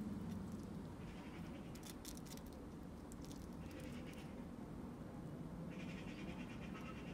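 Red squirrel eating a raw egg: faint small clicks of nibbling and licking at the egg, in three short spells.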